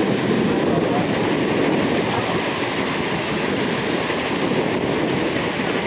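The 1913 Escher Wyss paddle steamer Gallia passing close by, its paddle wheels churning the water in a steady rushing noise.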